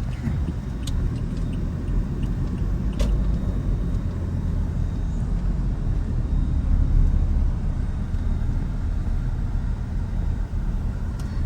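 Steady low rumble of a moving vehicle's engine and road noise, with a sharp click about three seconds in and another near the end.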